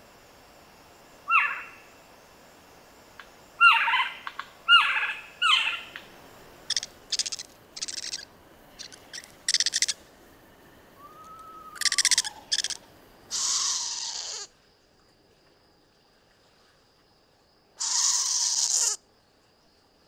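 Eastern screech owl giving a series of harsh, raspy screech calls. Short calls come first, then two longer screeches, each about a second long, that drop in pitch at the end.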